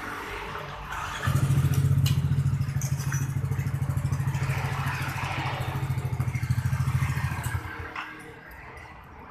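Honda Supra X 125D's single-cylinder four-stroke engine runs with a low, rapid pulsing for about six seconds, then stops. The exhaust it runs through has a leak.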